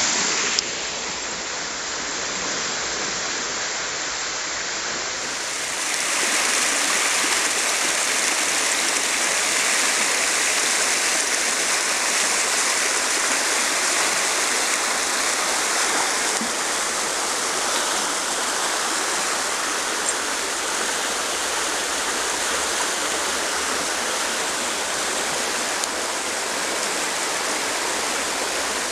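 Rushing water of a creek swollen by a sudden downpour, a steady rushing noise that gets louder about five seconds in.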